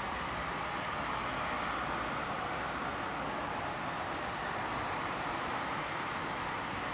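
Steady wash of distant road-traffic noise, even and unbroken, with no calls from the brooding wood pigeon.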